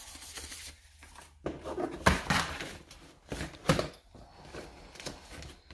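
Irregular knocks, clacks and rustles of small tools and sanding supplies being picked up and set down, about eight sharp hits spread unevenly with rustling between.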